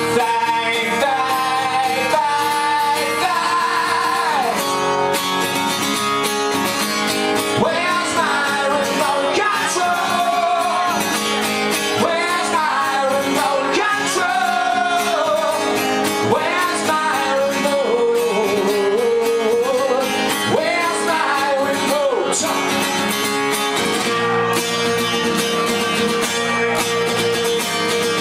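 A song played on acoustic guitar, with a melody line that bends and slides over the chords through the middle.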